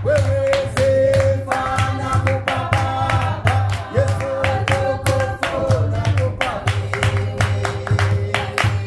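A small group of men and women singing a lively song unaccompanied, with steady rhythmic hand clapping.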